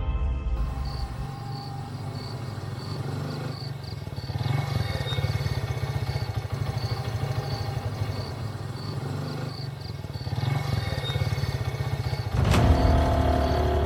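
Several motorcycle engines running steadily as the bikes ride past, growing louder about twelve and a half seconds in.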